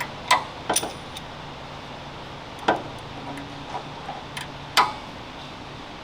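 Scattered sharp metallic clinks and knocks of bolts and hand tools being handled, about six in all, over a steady low workshop hum.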